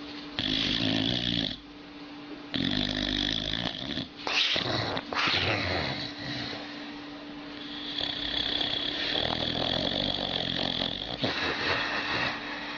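Old dog snoring in its sleep: a run of pitched, drawn-out snores about a second each, with a longer one about eight seconds in, sounding much like a human snoring.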